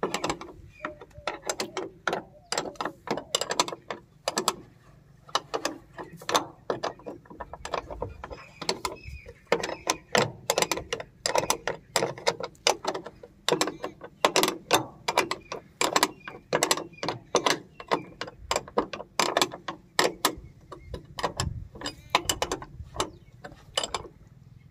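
Metal spanner clicking and clinking against a bolt and the steel bearing housing of a Preet thresher: a long run of sharp, irregular clicks, about two or three a second, as the bolt is worked loose or tight.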